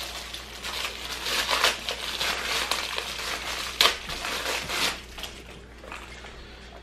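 Thin clear plastic bag crinkling as it is pulled off a toy Poké Ball, with one sharp crack about four seconds in. The crinkling dies down over the last couple of seconds.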